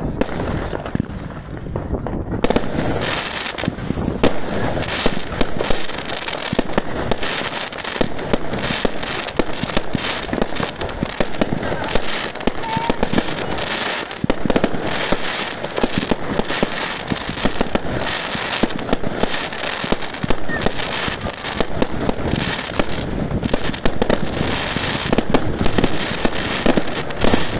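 Fireworks firing shot after shot in a dense, rapid string of launches, bangs and crackling pops, starting about two seconds in.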